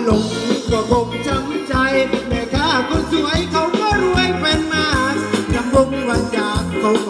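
Thai ramwong dance music from a live band playing through loudspeakers: a steady drum beat under a melody line.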